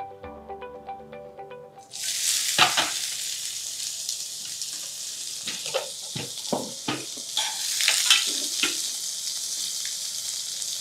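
Brief music, then about two seconds in chopped onions go into hot oil and whole spices and start sizzling loudly, with a spatula scraping and knocking in the pan as they are stirred.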